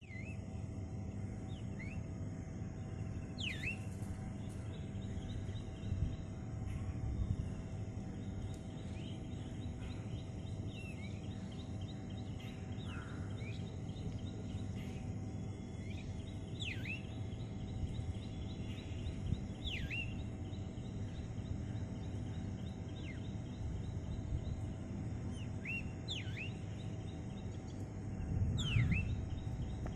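Birds chirping, with sharp downward-sweeping calls every few seconds over a steady low background rumble.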